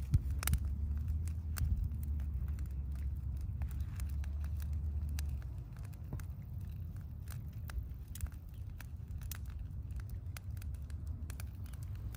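Brush pile fire crackling, with scattered sharp pops and snaps from the burning dry twigs and branches. A steady low rumble underneath stops about five and a half seconds in.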